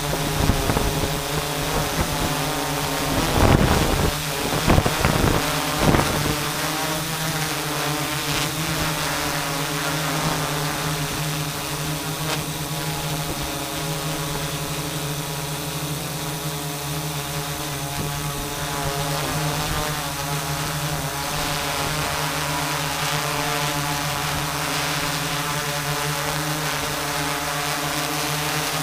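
Quadcopter drone's electric motors and propellers whirring steadily, heard from the camera mounted on the drone itself. A few louder rushes of noise come about three to six seconds in.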